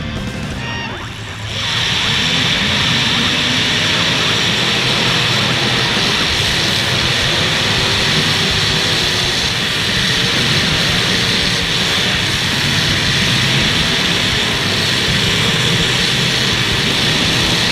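Loud, steady running of several demolition derby cars' engines at once. It comes in about a second and a half in, as background music cuts out.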